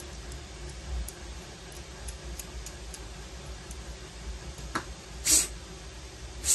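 Handling noise from small parts being worked with by hand over a low steady hum: faint scattered ticks, a small click, then two short sharp clatters near the end.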